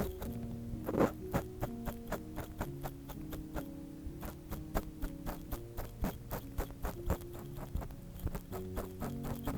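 Binaurally recorded ear-cleaning sounds: an ear pick scratching and clicking in quick, irregular strokes, over soft background music with held notes.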